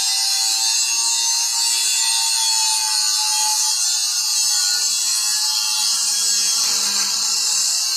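Angle grinder with an abrasive cutting disc cutting through steel pipe: a steady, high-pitched screech of the disc biting into the metal.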